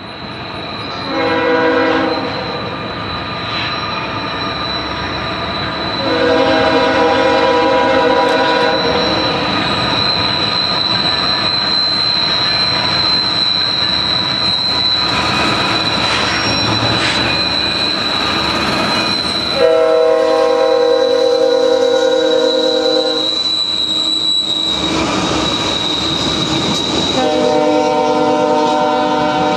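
BNSF diesel locomotives passing at the head of a double-stack container train. Their air horn sounds four long blasts over the steady rumble and clatter of the cars and a thin, steady, high-pitched wheel squeal.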